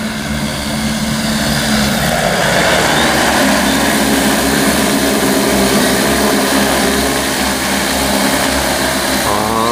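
Large agricultural spraying drone with 30-inch (75 cm) propellers flying close by: a steady, loud rotor whir whose pitch shifts slightly as the motors adjust, growing louder over the first couple of seconds.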